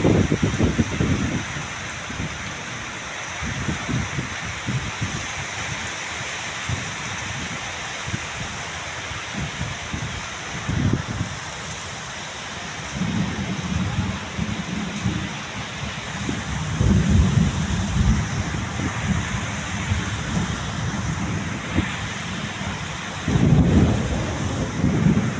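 Heavy rain falling steadily, with rolling thunder rumbling several times, loudest a little past the middle and again near the end.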